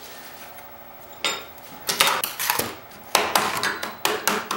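Pieces of plexiglass being handled and set down on a table saw's metal top: four clusters of hard clacks and short scrapes, plastic on metal and plastic on plastic.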